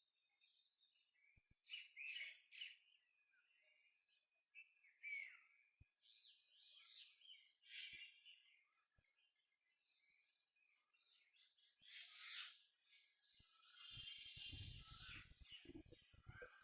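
Several birds chirping and singing faintly in short calls and trills. Near the end a low rumbling noise comes in under the birdsong.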